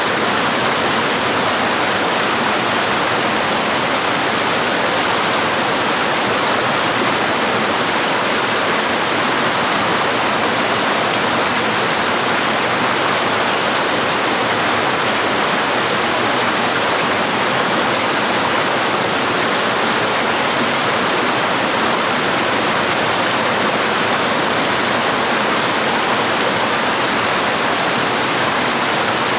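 Small forest waterfall and stream, water falling and flowing in a steady rushing noise.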